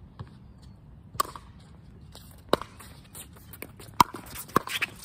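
Pickleball paddles striking a hard plastic ball in a rally: four sharp pops, at about one and a quarter seconds, two and a half seconds, four seconds and just after.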